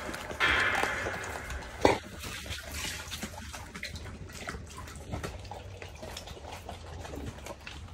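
Dogs chewing raw chicken: wet, irregular crunching and smacking, with one sharp knock just under two seconds in.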